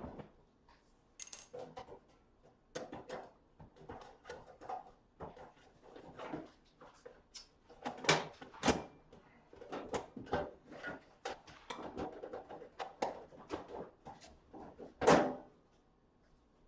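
Irregular series of knocks, clicks and rattles from objects being handled, loudest about eight seconds and fifteen seconds in.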